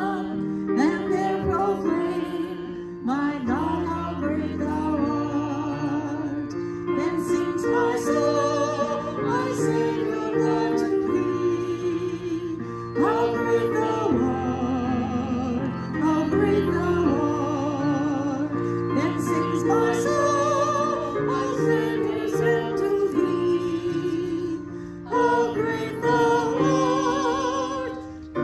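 A small church choir singing with vibrato, women's voices prominent, accompanied by an electronic keyboard playing held low notes.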